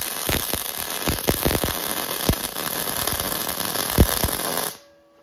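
MIG welding arc from an Arc Captain MIG 200 inverter welder burning on steel plate: a steady crackling hiss with scattered sharp pops. It cuts off suddenly near the end as the arc is broken.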